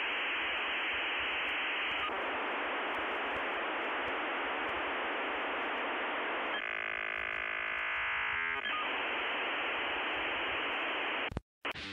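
Steady hiss of an airbrush spraying paint, thin and muffled in tone, that changes character briefly about two-thirds of the way through and cuts off abruptly near the end.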